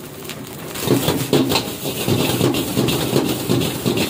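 Metal ladle scraping and knocking against a large wok as fried rice is stir-fried. The strokes start about a second in and go on in a quick, uneven rhythm of about two to three a second.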